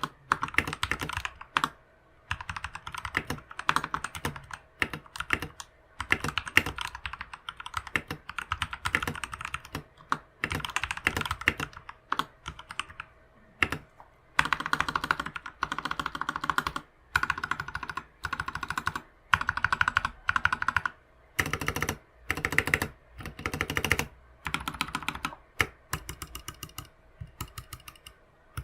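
Typing on an RK61 mechanical keyboard fitted with lubed Durock T1 tactile switches, lubed and clipped Durock stabilizers, a band-aid mod and EVA foam dampening. Fast runs of keystrokes come in bursts of a second or two, separated by short pauses.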